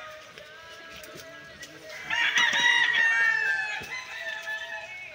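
A rooster crowing loudly once, about two seconds in, with fainter chicken calls around it.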